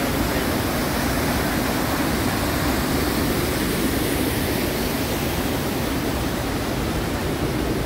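Steady rush of whitewater: the Ausable River pouring over falls and through rocky rapids.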